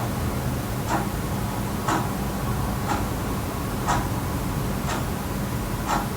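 Wall clock ticking evenly, about one tick a second, over a steady low hum.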